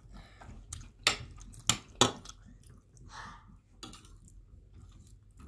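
Metal spoons and forks clinking and scraping against plates of rice. There are a few sharp clinks about one to two seconds in, with softer taps around them.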